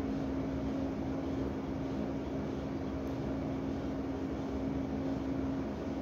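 A steady background hum: even noise with one constant low tone, unchanging throughout, like a fan or motor running.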